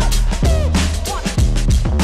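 Electronic dance music with a steady driving beat, heavy bass and gliding synth or vocal lines.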